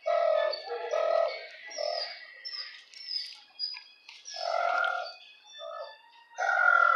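Dogs in shelter kennels barking and yelping, about eight short calls with gaps between them.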